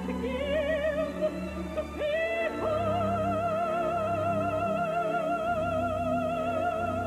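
Operatic soprano singing with a wide, even vibrato over sustained orchestral accompaniment. After a short phrase she leaps up about two and a half seconds in and holds a long high note.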